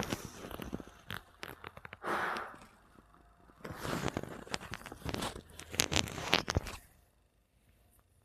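Rustling and crackling handling noise with many sharp clicks. It comes in bursts: one near the start, a short hiss around two seconds in, then a longer dense stretch in the middle of the clip that dies away near the end.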